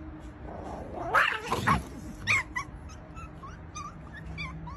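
A dog whining and yipping during a tussle with another dog over a stick: one loud wavering cry about a second in, a sharp yip soon after, then a run of short high whimpers.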